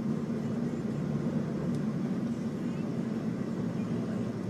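Steady drone of a car driving at freeway speed, heard from inside the cabin, with the low hum of road and engine noise and wind blowing against the car in a dust storm.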